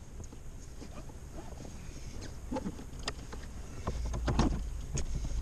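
Off-road vehicle running with a low engine rumble and scattered knocks and rattles. The rumble swells about four seconds in.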